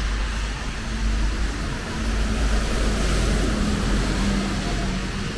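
Rain on a city street with traffic: a hiss of rain and wet road under a low vehicle rumble that swells about a second in and eases off near the end.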